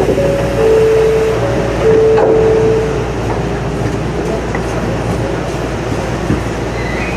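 Shonan Monorail 5000-series car standing at a station: a steady low hum of the car's equipment, with a two-note signal tone alternating between a higher and a lower pitch for about the first three seconds and a single clunk about two seconds in.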